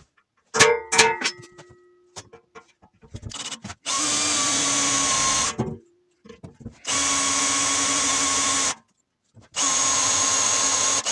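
A handheld power tool running in three bursts of about two seconds each, its motor spinning at a steady speed. Before it come a few sharp knocks, one of them leaving a short ringing tone.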